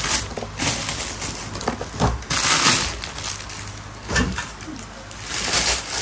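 Hands rummaging through a packed cardboard box: irregular rustling and crinkling of plastic wrapping and cardboard as items are shifted.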